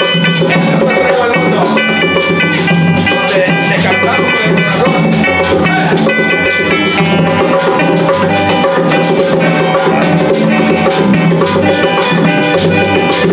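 Band playing an instrumental passage in a Latin folk style: electric bass and acoustic guitar keep a steady rhythm under a bright melody of short, held notes. Near the end a harmonica is raised to play.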